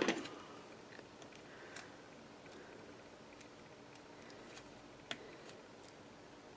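Faint room tone with a few light taps and clicks from small cardstock pieces and tools being handled on a silicone craft mat. The loudest tap comes right at the start, as a plastic glue bottle is set down, and another sharp click comes about five seconds in.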